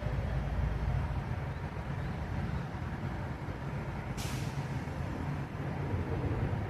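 Heavy diesel vehicle engine running with a steady low rumble, and a short hiss of air, like an air brake releasing, about four seconds in.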